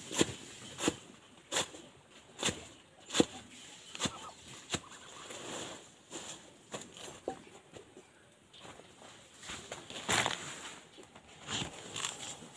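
Machete chopping through a pile of fresh leaves, sharp chops a little under a second apart, stopping about halfway and coming back with a few more near the end.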